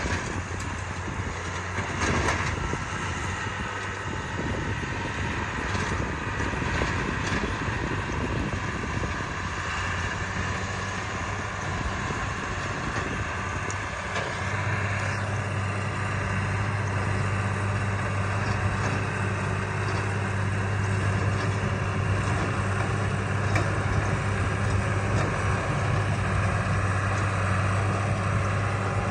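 John Deere tractor engine running steadily while pulling a rotary cutter (bush hog) through brush. The engine note firms up and gets a little louder about halfway through.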